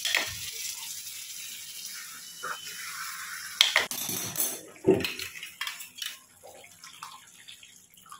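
Water poured from a steel mixer jar into a pot of vegetable curry while a metal ladle stirs it. The ladle knocks against the pot twice around the middle.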